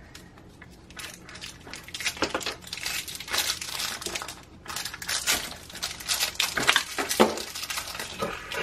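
Crinkly plastic blind-bag wrapper being torn open and crumpled by hand, a dense irregular crackle starting about a second in, mixed with clicks of small hard plastic toy capsules being pulled apart and handled.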